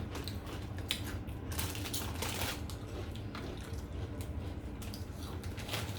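Close-up chewing of crunchy Cheetos: irregular crisp crunches over a low steady hum.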